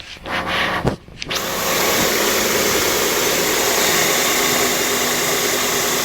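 A 2001 Honda Civic's four-cylinder engine idling with the AC on, its freshly tightened serpentine belts running without a squeal. A loud, steady whirring rush sets in abruptly a little over a second in.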